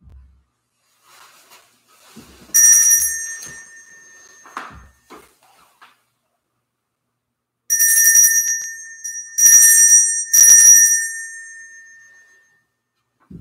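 Hand-held altar bell rung at the elevation during the consecration: one ringing stroke, then three more in quick succession, each fading slowly.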